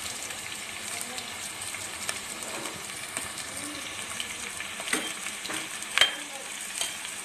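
Sliced onions sizzling steadily in hot oil in an aluminium pressure cooker, with a few sharp knocks of a steel ladle against the pot near the end as they are stirred.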